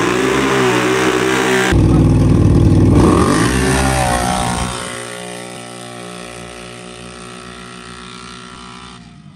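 Sport ATV engines revving hard and accelerating full throttle down a dirt drag strip, the pitch climbing and dropping through the gears. Loudest as a quad passes close about two to three seconds in, then fading steadily as the racers pull away.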